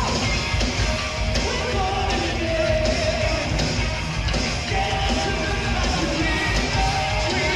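Heavy metal band playing live at full volume: drum kit pounding steadily under distorted electric guitar and bass, with a few long held notes over the top.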